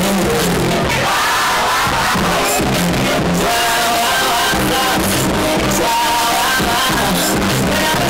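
Loud music with a singing voice, playing at an even level.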